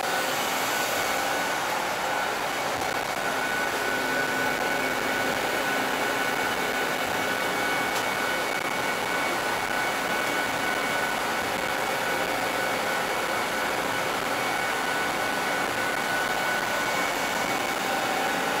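Steady whirring running noise of the Olympic Stadium tower's cable-hauled funicular cabin in motion, heard from inside the cabin, with a faint steady whine over it.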